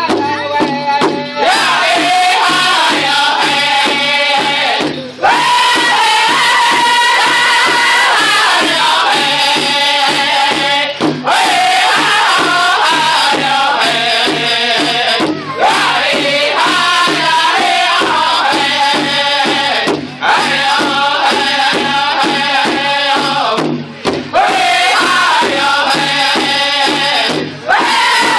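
Powwow drum group singing together in a chanting style while beating a big drum in a steady pulse, with short breaks between phrases.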